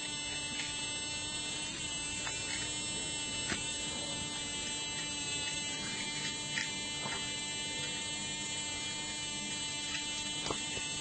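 A steady electrical buzz with a high whine from an appliance, with a few faint clicks and scrapes a second or more apart as a raw turnip is hollowed out with a knife.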